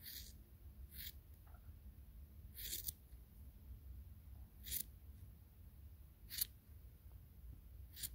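Scissors snipping through a puppy's fur as its coat is trimmed: about six short, crisp snips one to two seconds apart.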